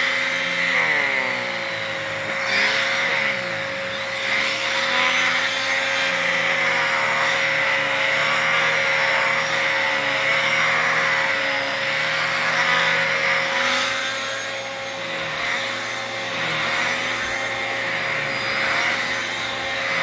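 Dirt Devil Multi-Surface Rewind upright vacuum running with its turbo brush attachment on a chair. A steady motor whine over rushing air, with a lower whirring that wavers up and down in pitch as the brush is worked.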